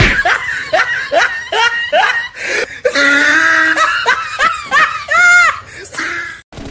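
A man laughing loudly in a run of short rhythmic bursts, with one longer, higher drawn-out laugh a little after five seconds; it cuts off suddenly near the end.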